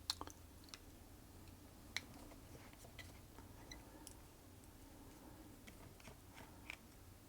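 Faint, irregular small clicks and scratches: black overspray paint being scraped off the metal hook of a Singer Featherweight 221K sewing machine.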